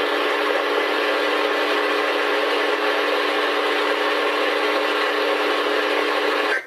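Emergency Alert System attention signal: a loud, steady two-tone chord, harsh and distorted into many overtones, that cuts off abruptly at the end.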